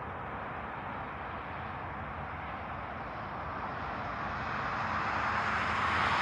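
A passing vehicle: a steady rushing noise that grows louder toward the end, peaking about six seconds in, with a faint low hum beneath it.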